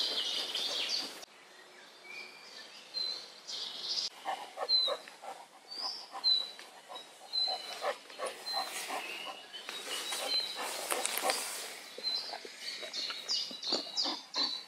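Small birds chirping, with short high calls about once a second, over close rustling and soft snuffling in the undergrowth from a basset hound nosing through leaf litter.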